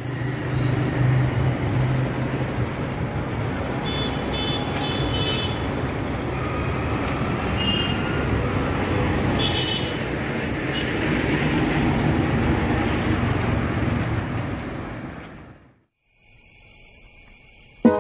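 Busy street traffic: scooter, motorbike and car engines with road noise, and short horn toots around four to five seconds in and again near ten seconds. The traffic sound cuts off a couple of seconds before the end, and faint high tones follow.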